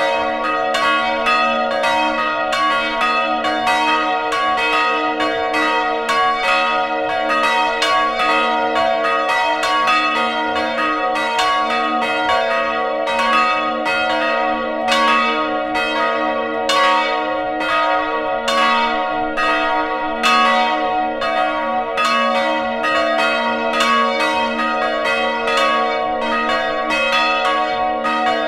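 Full peal of several swinging church bells heard from inside the belfry: clapper strokes follow one another several times a second, over the steady hum of the bells' ringing.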